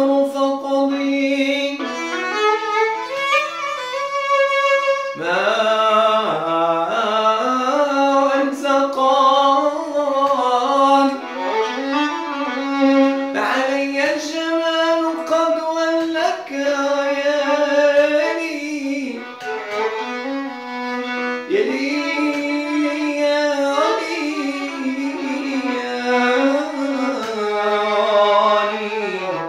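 Violin held upright and bowed, playing a continuous flowing melody with sliding, ornamented notes.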